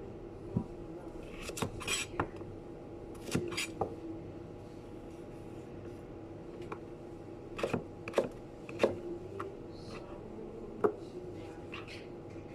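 Clinks and knocks of dishes and utensils during kitchen food preparation, coming irregularly in small clusters, over a steady low hum.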